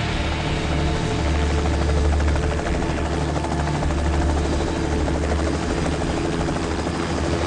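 Helicopter running steadily in flight: a low, constant engine drone with the rapid, even chop of the rotor blades.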